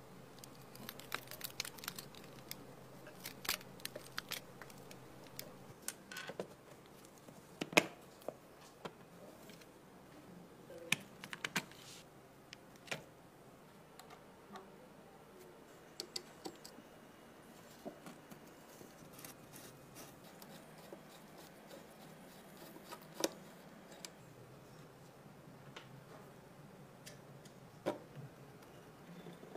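Scattered sharp clicks and short scrapes of a screwdriver and small metal parts being handled as a rusty airsoft gun is taken apart.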